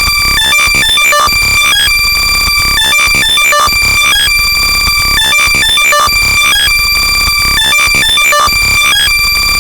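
Extremely loud, heavily compressed and distorted electronic sound made for locating lost AirPods. Several high-pitched tones are held and then chopped into rapid stutters by a slicer effect, over a loud distorted low rumble, with no let-up.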